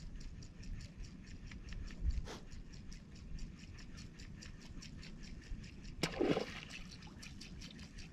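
Spinning fishing reel being cranked to work a topwater lure: fast, even, faint ticking with water in the background. About six seconds in there is a short splash, a snapper striking at the lure without getting hooked.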